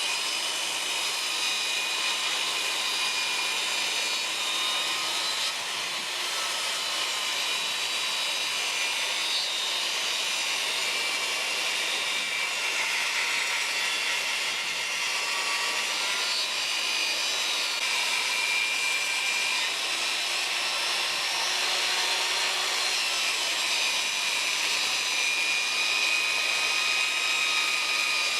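Electric power saw, its blade tilted to a 30-degree bevel, running steadily through a long cut along a wooden board, with a steady motor whine; it stops right at the end. It runs off a petrol generator because the solar power is too low.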